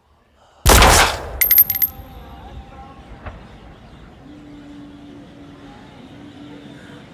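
A sudden loud bang, then a rapid burst of sharp cracks with a high ringing tone. After that, faint ambience with a low steady hum.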